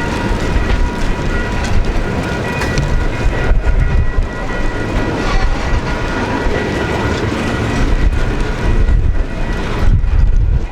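Train rolling past on the rails, wheels clacking over the rail joints over a steady low rumble, with a few faint steady high-pitched tones.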